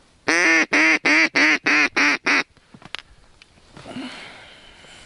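Duck call blown in a string of seven loud, evenly spaced quacks lasting about two seconds, a hen-style call used to draw flying ducks toward the decoys.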